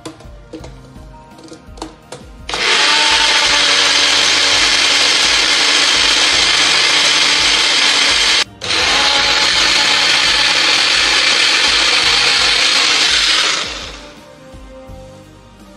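Electric mixer grinder (mixie) running at full speed, grinding soaked roasted chickpeas with spices into a chutney. It starts a couple of seconds in, after a few knocks of the jar being seated on the base. It cuts out for an instant about halfway and starts again, then winds down near the end.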